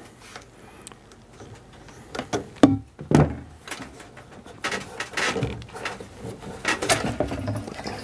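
Handling noise as pliers squeeze a hose clip and a rubber fuel line is worked off a lawnmower carburettor, then pushed into the neck of a plastic fuel can: a few sharp clicks and knocks, then a longer stretch of scraping and rustling.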